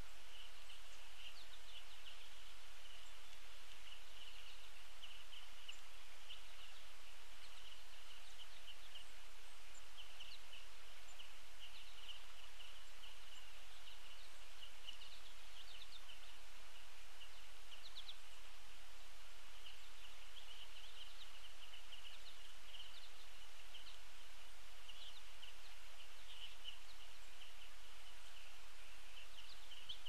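Small songbirds chirping and twittering in a near-constant stream of short high calls, over a steady outdoor hiss.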